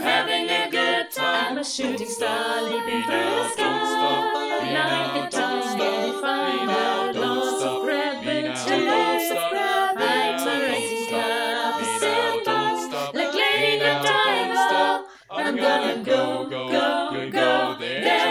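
A cappella ensemble of mixed male and female voices singing in harmony, with bass lines under the upper voices. There is one short break about fifteen seconds in.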